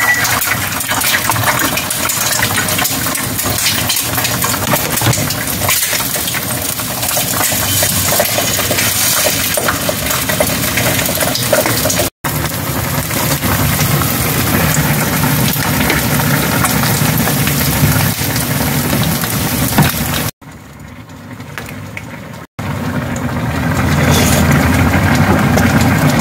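Eggs frying in oil in a nonstick pan: a loud steady sizzle with fine crackling pops. The sound drops out abruptly twice, once briefly and once for about two seconds.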